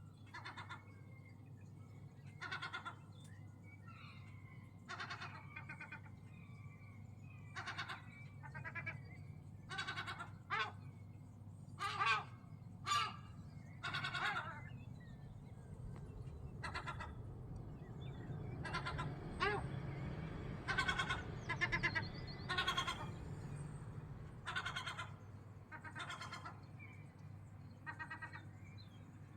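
Gulls calling over and over in short, harsh calls, some overlapping, louder from about a third of the way in. A steady low hum sits underneath, and a small bird chirps faintly near the start.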